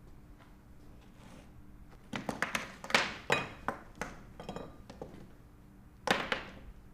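Handling noise: a quick run of knocks, taps and light clinks, a few with a short metallic ring, then one more knock near the end.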